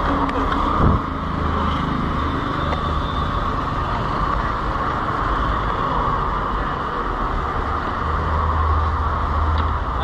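Steady road traffic noise from passing vehicles, with a single short knock about a second in.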